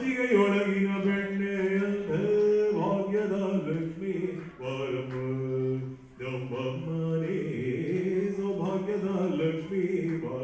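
A man's voice singing a slow, chant-like melody into a handheld microphone, with long held notes that step and glide in pitch and brief breaks for breath.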